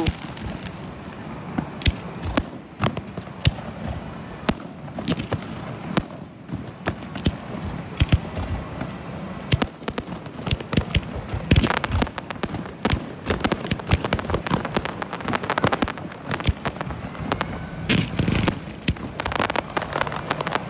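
Aerial fireworks display: shells bursting in irregular bangs, with thick clusters of rapid crackling about twelve seconds in and again near the end.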